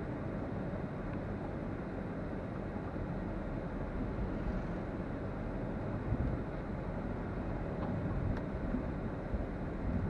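A car driving along, with a steady low rumble of road and engine noise.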